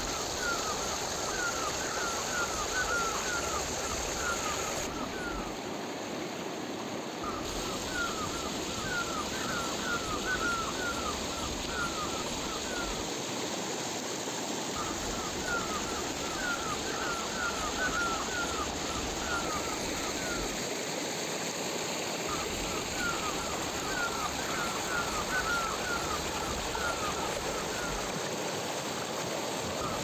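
Steady rush of river water, with a chirping call repeated in bouts of about five seconds, roughly four short falling chirps a second, separated by brief pauses.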